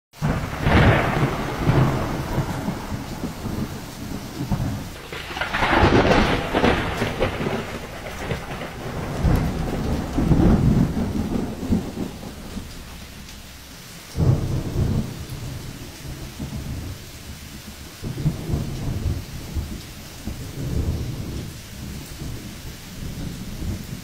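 Storm wind and heavy rain, the gusts hitting the microphone in deep, uneven surges that swell and fade every few seconds over a steady hiss of rain.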